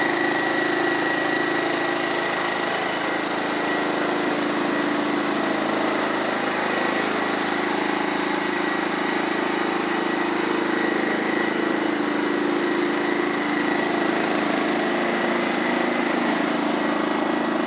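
John Deere STX-38 lawn tractor's Kohler Command 12.5 hp single-cylinder engine running steadily at a constant speed.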